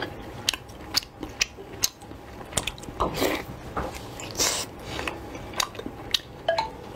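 Close-miked eating of a fried, crusted piece of food: sharp crunching clicks and wet mouth smacks at an uneven pace of about two a second, with a few longer chewing squelches.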